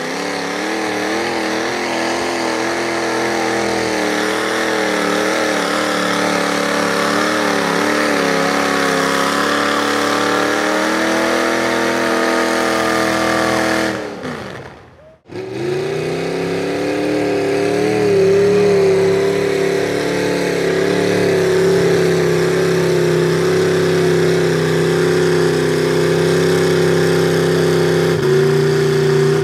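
Mud-bog pickup truck engines running at high revs as they plow through a mud pit. The first engine's pitch wavers and then climbs. After a brief drop about halfway through, another engine is held at steady high revs.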